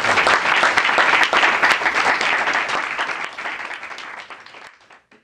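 A small audience applauding, the clapping thinning and fading out over the last couple of seconds.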